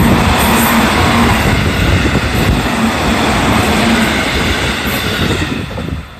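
A JR Central electric multiple-unit commuter train passing close by, loud. Its noise falls away in the last half second as the train clears.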